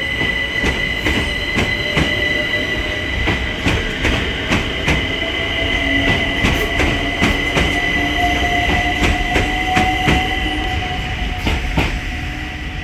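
London Overground Class 378 electric train pulling away: its traction whine rises slowly in pitch as it gathers speed, over steady high-pitched tones, with the wheels clicking irregularly over rail joints and pointwork.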